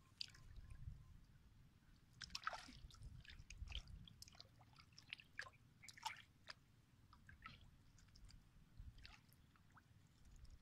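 Faint, scattered splashes and drips of shallow water as a small hooked fish is pulled in and grabbed by hand, with a stronger splash about two and a half seconds in.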